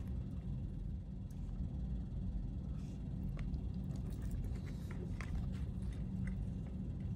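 Steady low rumble of room noise, with a few faint clicks and taps from eating cake with a plastic fork out of a plastic tray.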